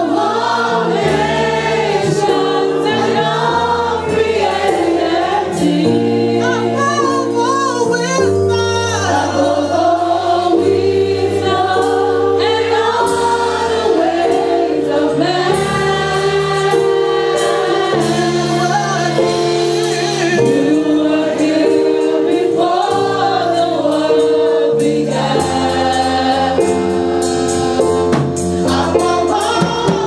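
Church worship team singing a gospel worship song together into microphones, over steady sustained accompaniment chords that change every second or two.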